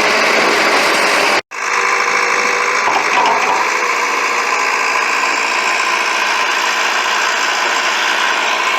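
Allis-Chalmers 715C backhoe's engine running steadily, with a brief break about one and a half seconds in.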